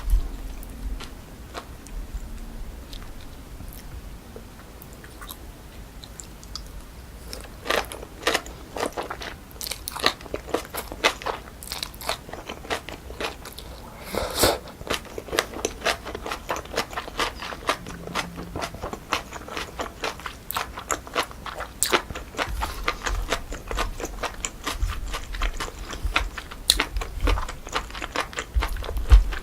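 Chewing and crunching a mouthful of naengchae jokbal, cold sliced pork trotters in jellyfish salad, with crisp, rapid crunches and wet clicks. It is soft and sparse at first, then turns to dense crunching about a quarter of the way in.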